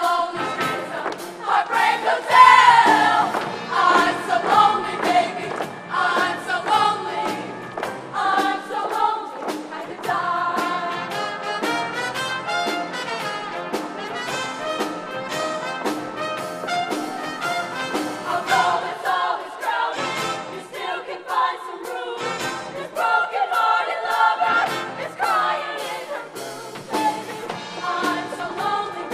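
A show choir singing full-voiced with a live band over a steady beat.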